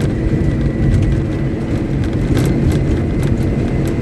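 Caterpillar 777D haul truck's large diesel engine running steadily under a stationary ground test, a deep, even engine note with a faint high steady whine over it.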